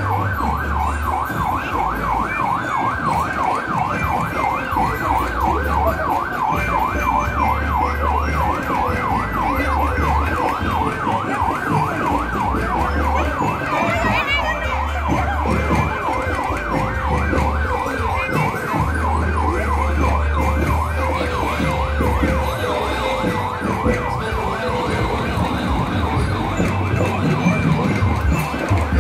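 An electronic siren in rapid yelp mode, a fast up-and-down warble, strongest for the first half and then fading, with a brief rising whoop about halfway through. Deep bass pulses throb unevenly underneath.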